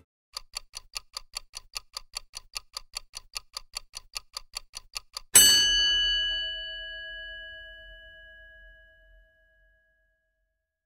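A ticking timer sound effect, about five fast ticks a second, then about five seconds in a single loud bell ding that rings on and fades away over several seconds.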